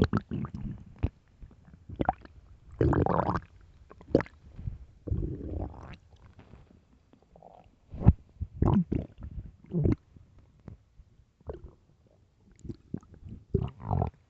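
A person's stomach growling and gurgling in irregular bursts, with short squelchy pops and clicks between longer rumbles. The longest rumbles come about three and five seconds in, and a sharp pop about eight seconds in.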